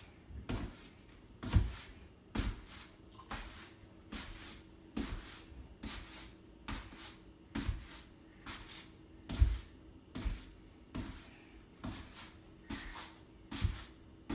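Ballet slippers brushing and tapping on a hardwood floor as a leg is repeatedly extended and closed. The knocks come in a steady rhythm of about two a second, some landing as heavier thumps.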